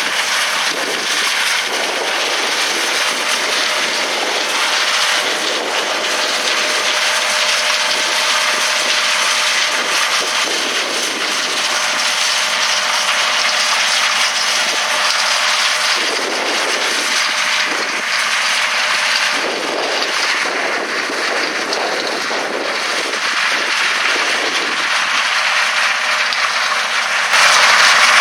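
John Deere S680 combine running steadily while harvesting corn, its engine and threshing machinery making a continuous mechanical noise that gets suddenly louder near the end.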